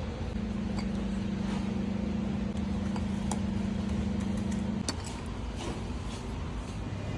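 Steady supermarket background noise with a low hum held for about four and a half seconds, and a few light clicks.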